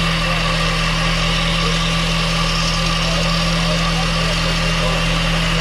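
An engine running steadily at a constant speed, with a strong even hum.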